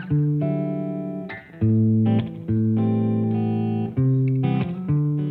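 Background music: a plucked guitar strumming chords that ring out, with a bass line beneath, and no voice.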